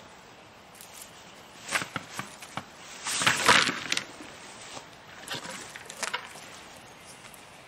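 Irregular knocks and rustles from gear being handled, with a louder noisy clatter about three seconds in and a few lighter knocks afterwards.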